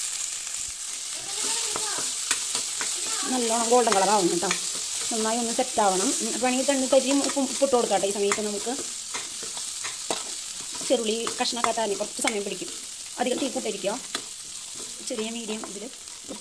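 Small shallots, curry leaves and green chillies sizzling in hot oil in a stainless-steel kadai, stirred with a steel spatula that scrapes and clinks against the pan.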